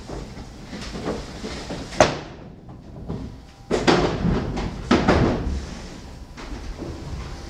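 Door being closed: a series of knocks and thuds, the sharpest about two seconds in, then two heavier knocks near four and five seconds.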